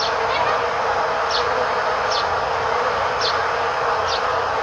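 Honeybees buzzing around their hive in a steady drone, while a bird repeats a short, falling chirp about once a second.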